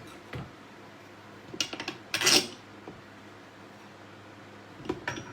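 Hard clinks and knocks as a grinding wheel is handled and fitted onto the grinder, a few separate strikes with the loudest about two seconds in.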